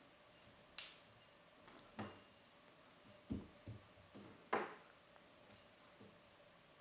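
Faint, scattered light clinks and jingles with a few soft thumps as a kitten scrambles about a carpeted cat tree, batting at a hanging pom-pom toy. The sharpest clinks come about a second in and again past the middle.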